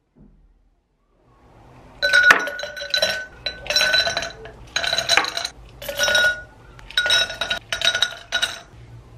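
Ice cubes dropped one by one into can-shaped glass tumblers, each landing with a sharp clink and a ringing glass tone. About seven clinks come in quick succession, starting about two seconds in.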